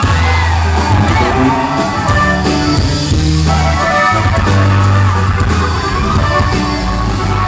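Live norteño band music: accordion melody over a heavy, steady bass line and drums, played loud.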